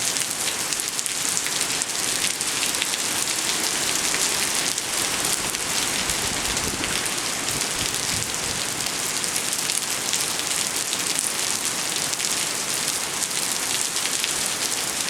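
Steady heavy rain from Hurricane Irene, with countless separate drop hits sounding through a constant hiss.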